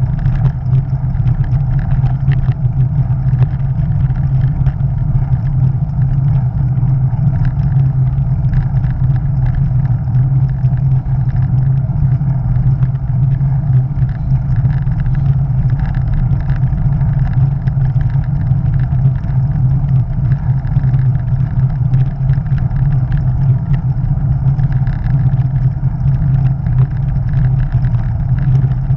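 Steady loud rumble of wind buffeting a bicycle-mounted action camera's microphone while riding, mixed with tyre noise on the asphalt.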